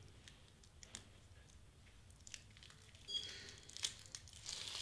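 Clear plastic film and backing sheet from a Xyron sticker maker being peeled and handled: faint scattered crackles that grow into louder crinkling about three seconds in.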